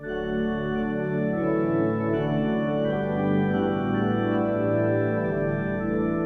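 Organ playing slow, sustained chords that change every second or so, beginning suddenly out of silence.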